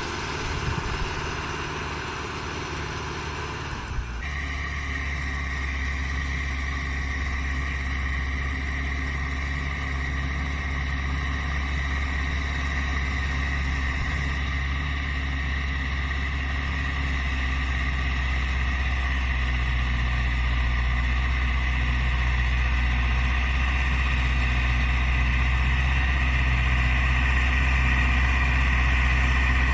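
Case CX80 tractor's diesel engine running steadily while ploughing, a low drone with a steady high whine over it. The sound changes abruptly about four seconds in, then holds and grows slowly louder.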